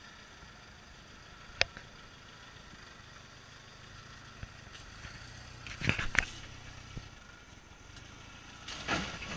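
Lifted Toyota 4x4 pickup's engine running at low revs as it crawls over boulders, a steady low hum, with sharp knocks and clunks about a second and a half in, a louder cluster around six seconds, and another near the end.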